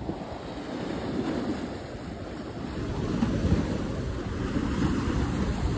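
Lake waves washing and breaking against a concrete seawall, with wind buffeting the microphone; the rushing grows louder about halfway through.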